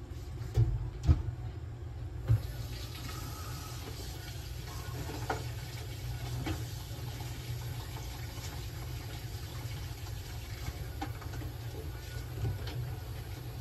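Veterinary inhalation and oxygen cage equipment running: a nebulizer and oxygen flow making a steady low rush with a faint hiss. Three short knocks come in the first couple of seconds.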